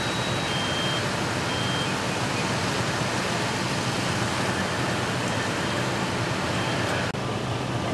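Fire hose spraying water, a steady rushing hiss, over the low steady drone of a fire engine running.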